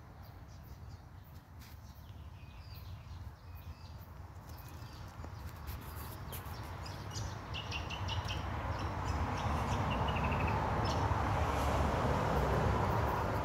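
Outdoor garden ambience: small birds chirping and trilling, over a low hiss and rumble that grows louder through the second half.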